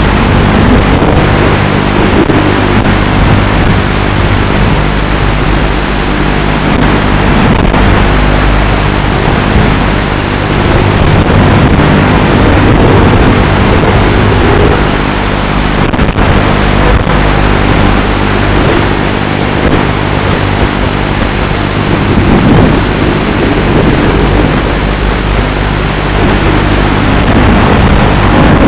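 FPV racing quadcopter's motors and propellers running in flight, a loud steady whine whose pitch rises and falls as the throttle changes, over a rushing noise.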